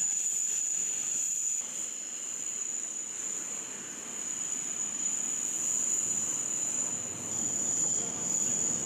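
Steady high-pitched whine from an unseen machine over a constant background noise.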